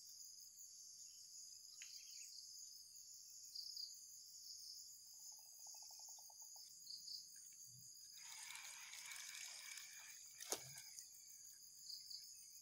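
Faint, steady high-pitched chirring of insects, with a couple of seconds of rustling about eight seconds in and a single sharp click a little after ten seconds.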